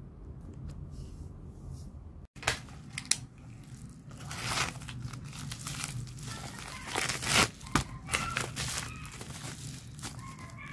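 A plastic shipping mailer being torn open and its plastic wrapping crinkled by hand, after about two seconds of low room hum. A couple of sharp clicks come first, then dense crinkling and tearing, loudest a little past the middle.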